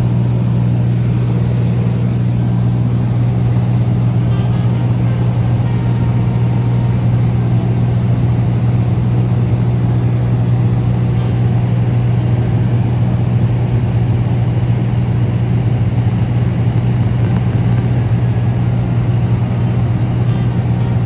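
Cessna 207's single six-cylinder piston engine and propeller droning steadily in cruise flight, a constant low hum over a wash of engine and air noise.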